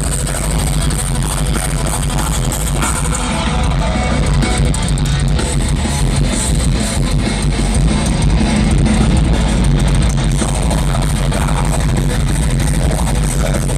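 Live heavy metal concert heard through a phone or camera microphone: loud distorted electric guitars over a heavy booming bass, muddy and overloaded.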